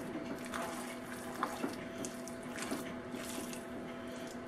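A spatula folding lasagna noodle strips through a thick cheese and béchamel mixture in a bowl: wet squelching with irregular small scrapes and clicks, over a faint steady hum.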